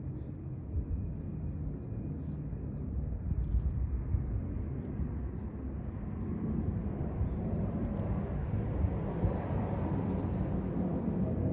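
A distant engine rumble, steady and slowly growing louder in the second half, with a few faint high chirps on top.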